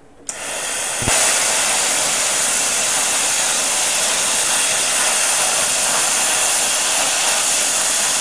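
40-amp air plasma cutter cutting 3 mm mild steel plate. Air starts hissing from the torch, then about a second in the arc lights with a sharp click and runs on as a steady loud hiss.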